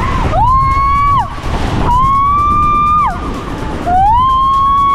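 A rider on a tube water slide screaming, three long high-pitched cries, each held steady and then falling in pitch as it breaks off, over a steady low rush of water.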